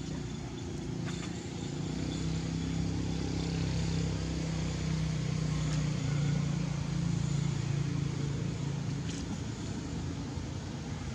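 A motor engine running steadily with a low hum that grows louder through the middle and eases off toward the end, like a vehicle passing nearby, with a couple of faint clicks.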